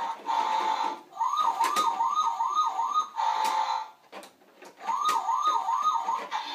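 Electronic siren from a battery-powered toy truck's small speaker: a steady tone that turns into rapid rising-and-falling wails, about three a second, breaks off for a moment, then wails again and settles back to the steady tone.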